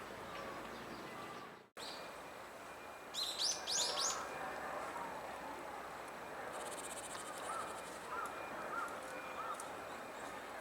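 Japanese tit calling: a quick cluster of loud, high chirps about three seconds in. Fainter, lower short bird notes repeat four or five times later on, over steady outdoor background.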